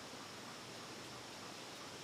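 Faint, steady, even hiss with no distinct sounds: background room tone.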